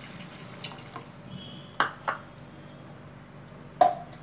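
The last of a pour of water into a cooking pan at the very start, then three short sharp clinks of kitchen utensils: two close together about two seconds in and one near the end.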